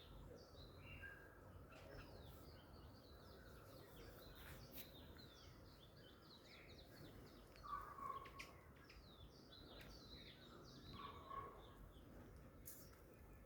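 Faint birdsong: many short, high chirps from several birds throughout, with two louder, lower calls about 8 and 11 seconds in.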